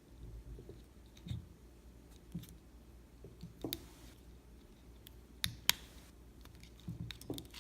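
Scattered small clicks and a soft rustle from hands pulling a tie line through and snugging a card onto a slingshot frame.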